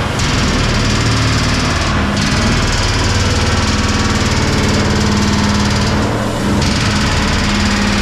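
Heavy machinery running loud and steady, a constant engine hum under a dense mechanical din.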